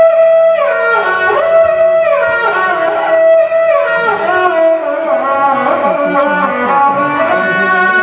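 Sarangi bowed in a flowing melody, its phrases sliding down in pitch about once a second over a held note that rings on throughout.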